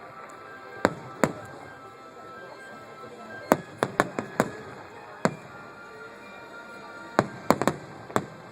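Fireworks going off: about a dozen sharp bangs and pops at irregular intervals. They come in quick clusters about three and a half seconds in and again about seven seconds in, with single reports in between.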